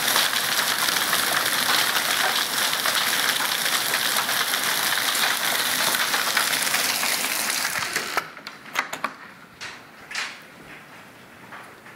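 Hail and heavy rain pelting a wooden deck, a dense, steady clatter. About eight seconds in it drops away abruptly as the camera goes indoors, leaving a few knocks and thuds.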